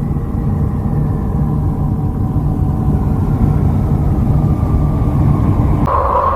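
Spacecraft radio and plasma-wave data converted to sound: a steady low rumbling drone with faint held tones above it, which cuts near the end to a different, higher steady hum.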